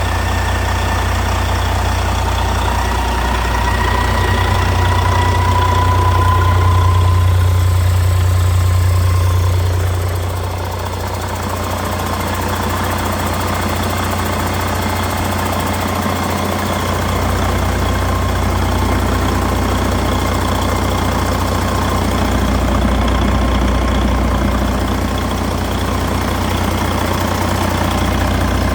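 2011 Detroit DD15 14.8-litre diesel engine running steadily on a run test. It grows a little louder between about four and ten seconds in, with a faint whine that rises slightly before fading.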